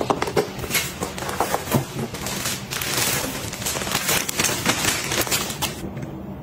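Clear plastic bag crinkling and crackling as it is handled and pulled off a new pillow taken out of a cardboard box: a dense run of sharp crackles that stops shortly before the end.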